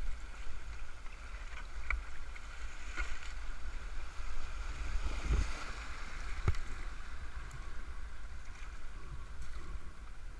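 Fast river water rushing and splashing around a Pakboats folding canoe as it runs a shallow rocky rapid, with paddle strokes in the water and a few sharp knocks.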